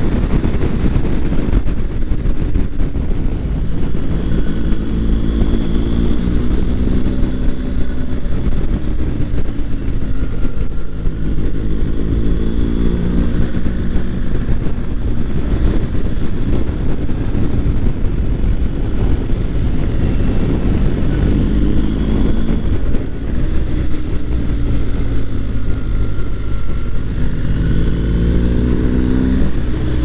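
BMW R1250 GS boxer-twin engine pulling hard under way, its pitch rising in several sweeps and dropping back between gear changes, over a steady rush of wind and road noise.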